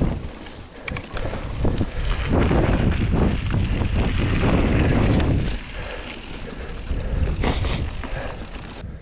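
Wind rushing over the microphone of a mountain bike rolling fast over a grass and dirt track, loudest from about two to five and a half seconds in, with short knocks and rattles from the bike over bumps.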